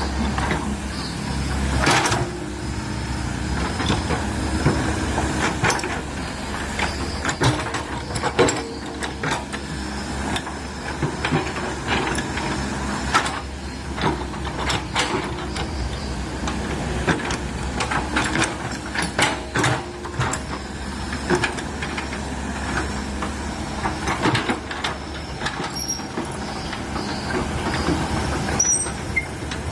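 Komatsu PC130 excavator's diesel engine running steadily under load while it digs, with repeated clanks, knocks and squeaks from the bucket, arm and tracks working against a tree stump.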